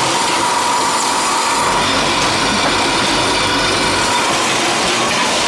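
Automatic pouch-to-carton packing line running: steady machine noise with a faint steady tone running through it.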